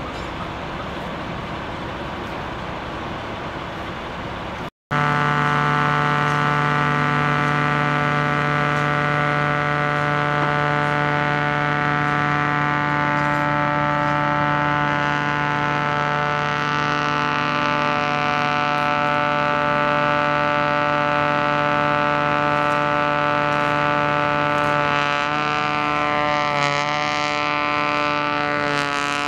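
A steady engine rumble for the first few seconds. Then, after a cut, the loud, steady, strongly pitched drone of a truck-mounted ice blower running, feeding crushed ice through a long hose onto a snow pile.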